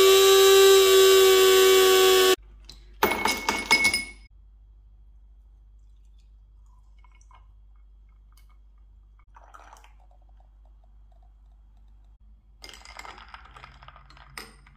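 Electric drink mixer motor running at a steady high speed as it whips espresso with ice in a steel jug, cutting off suddenly about two seconds in. Clinking follows about a second later, and faint clinking of ice near the end as the drink is stirred with a straw.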